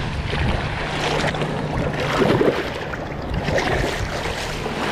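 Shallow water splashing around hands and a released snook at the shoreline, over small waves lapping and wind on the microphone, with a steady low hum underneath.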